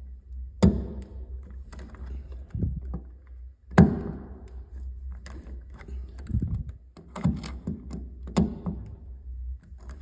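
Metal clicks and knocks of a Leatherman multitool's Phillips screwdriver tightening the mounting screws of a brass doorknob, a scattered series of taps with a sharp knock about half a second in and the loudest about four seconds in.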